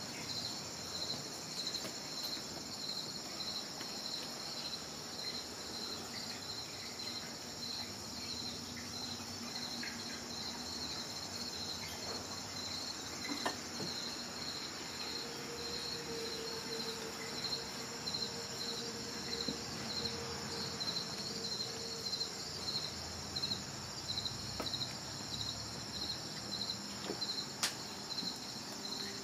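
Outdoor insect chorus: a steady, high-pitched chirping that pulses in an even rhythm several times a second over a continuous higher drone.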